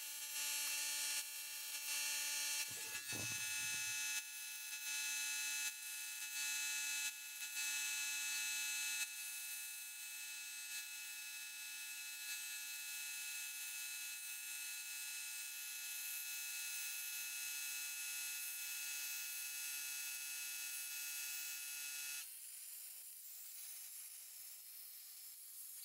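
CNC plasma table cutting sheet steel: a steady high whine and hiss from the plasma torch, rising and falling in steps about once a second for the first several seconds, then running evenly. A low thump comes about three seconds in. Near the end the whine stops, leaving a fainter hiss.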